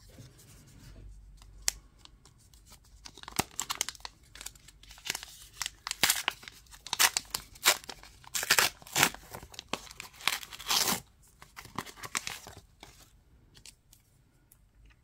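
AFL Team Coach trading-card pack wrapper being torn open and crinkled by hand: a run of sharp rips and crackles that builds and then dies away a couple of seconds before the end.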